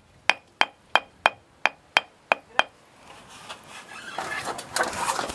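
A hammer tapping at the wall in an even rhythm, about three light strikes a second, each with a short metallic ring. The tapping stops about halfway through and gives way to scraping and rustling.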